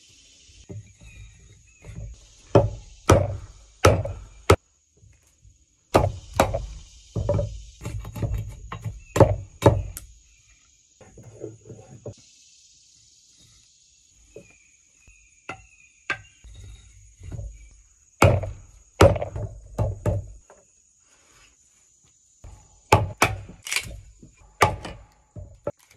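Wooden mallet striking the back of a blade driven into wood: sharp wooden knocks in bursts of several blows, with quieter pauses between.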